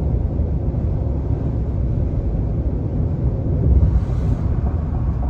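Steady low road rumble of tyres and wind inside the cabin of a Ford F-150 Lightning battery-electric pickup cruising on the highway, with a brief higher hiss about four seconds in.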